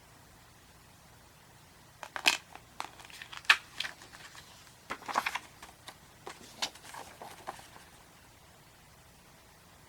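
Blu-ray case and its plastic packaging being handled: a run of irregular sharp clicks and crinkling that starts about two seconds in and stops a couple of seconds before the end.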